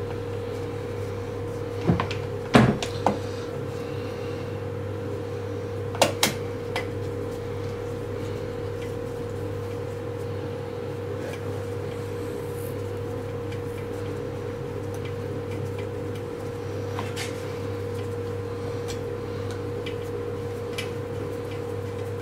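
A few sharp clicks and knocks of hand tools and screws being handled while the bottom screws go into a recoil starter housing, most of them in the first seven seconds, over a steady background hum.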